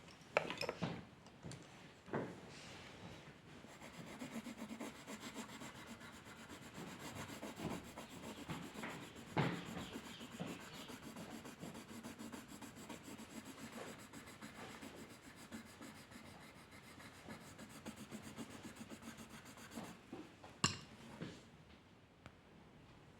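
Continuous scratchy rubbing of a drawing tool shading back and forth on paper, with a few sharp taps scattered through.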